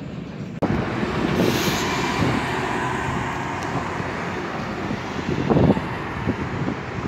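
Steady roar of a passing airliner's jet engines, cutting in abruptly and louder about half a second in. Wind buffets the microphone in gusts, most strongly about five and a half seconds in.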